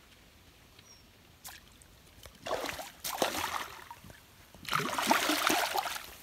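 A hooked fish thrashing and splashing at the pond surface as it is pulled in on the line: a first spell of splashing about two and a half seconds in, then a louder one about five seconds in as the fish is hauled out of the water.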